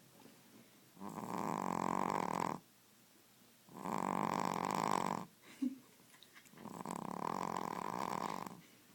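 Sixteen-week-old Boston Terrier puppy snoring in her sleep: three long snores in an even rhythm, roughly three seconds apart and each lasting about a second and a half. A brief short sound comes between the second and third snores.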